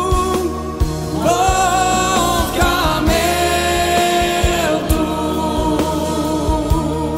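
Romani gospel worship song: singing voices holding long notes over a band with a steady beat.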